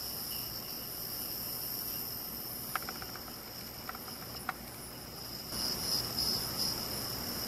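Faint output of a TA7642 AM radio heard through a piezo buzzer used as an earphone: a thin, steady hiss with a high whine and no clear speech or music, with a few soft clicks in the middle. About five and a half seconds in it grows louder and more uneven.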